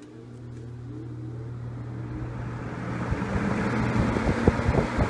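1950s Roto-Aire 07104 box fan starting up on high: the motor hum comes on at once and the rush of air builds steadily as the seven blades spin up, with a faint rising tone early on. In the second half the airflow buffets the microphone. Its running sound is not very loud for the amount of air it moves.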